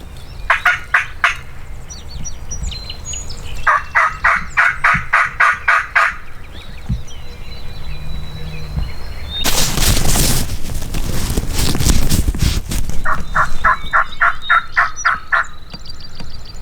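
Turkey yelps in two runs of about ten evenly spaced notes, the second run some nine seconds after the first. A loud rush of broad noise comes between them.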